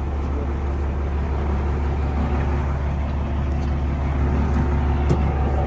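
Truck engine running steadily, a low even drone with no revving.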